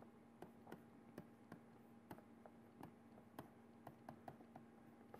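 Faint, irregular clicks and taps of a stylus pen on a tablet as words are handwritten, a few a second, over near-silent room tone with a faint steady hum.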